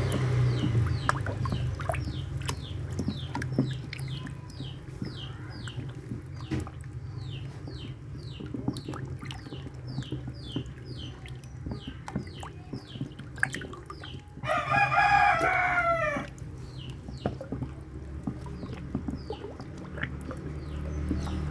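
Red-eared slider turtles splashing and snapping at a floating papaya in shallow water, over a repeated high chirp about twice a second. A rooster crows once, loudly, about two-thirds of the way in.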